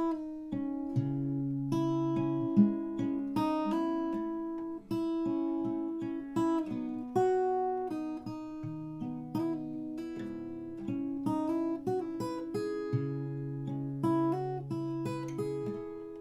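Acoustic guitar with a capo, fingerpicked slowly: a broken-chord pattern in A minor with the left hand hammering notes on as ornaments, bass notes ringing under the higher strings.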